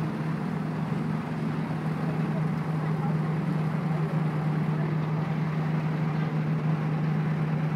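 A steady low engine hum on one unchanging pitch, over a haze of street noise.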